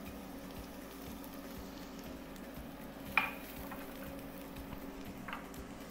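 Minced garlic sizzling faintly in oil in a nonstick frying pan as a spatula stirs it, over a low steady hum. A sharp clink about three seconds in is the loudest sound, and a softer one follows about two seconds later.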